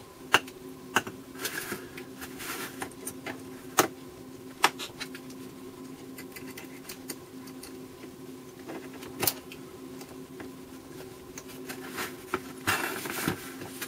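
Scattered sharp clicks and light rustling of needle-nose pliers and stiff wire being bent around the pins of a vacuum-tube socket on a copper-clad board. A steady low hum runs underneath.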